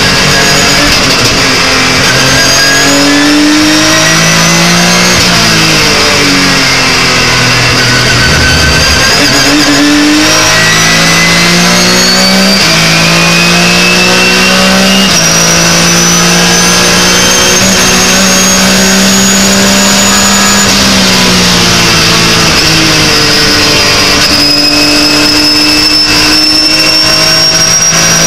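Porsche 911 GT3 Cup's flat-six racing engine under hard acceleration, heard from inside the cockpit. Its pitch climbs through each gear and drops sharply at quick gear changes, then falls away once about three-quarters of the way through before climbing again.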